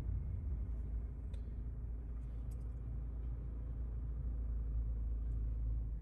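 Low, steady rumble of a car's cabin while it waits at a red light, with a few faint clicks.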